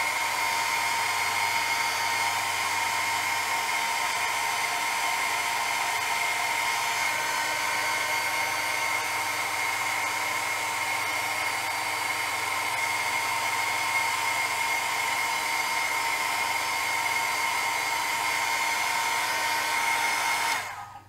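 Small handheld heat tool blowing hot air across wet paint to spread and dry it: a steady rush of air with a high hum. It cuts off suddenly just before the end.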